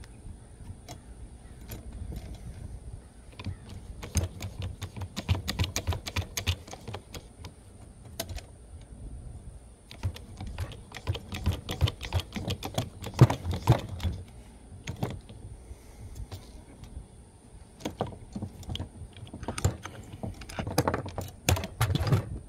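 Hydraulic lug press and its metal parts being worked during cable-sleeve crimping: three bursts of rapid clicking and clattering.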